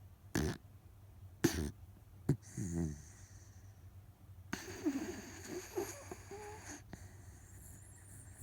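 Miniature dachshund snoring in deep sleep. A few short snores come in the first three seconds, with a sharp click just after two seconds. A longer snore follows, lasting over two seconds, from about four and a half seconds in.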